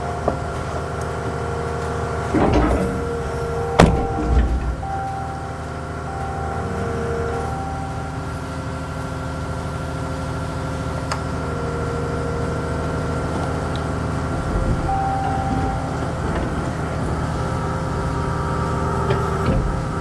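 Komatsu Avance hydraulic excavator's diesel engine running steadily while the boom and bucket are worked. A whining tone comes and goes with the hydraulics, and there are sharp knocks about two and a half and four seconds in.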